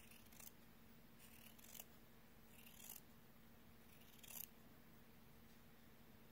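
Scissors snipping through thin, gauze-like fabric: four faint, short cuts about a second and a half apart, over a faint steady hum.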